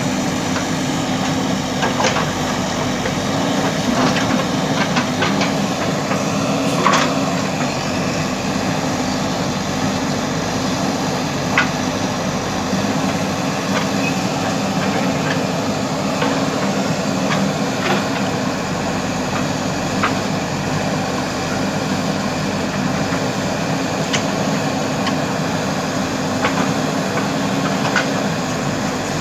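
JCB earthmover's diesel engine running steadily, with occasional sharp knocks and clanks from the machine's work.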